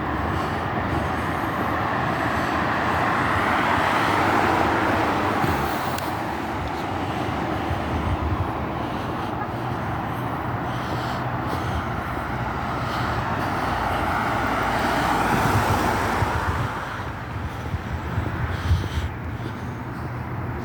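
Road traffic: cars passing by, their tyre and engine noise swelling and fading twice, loudest about four seconds in and again about fifteen seconds in.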